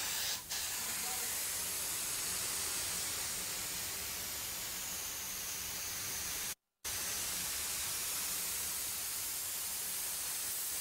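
Spray gun hissing steadily as coating is sprayed onto an HVAC coil, with a moment of dead silence about two-thirds of the way through.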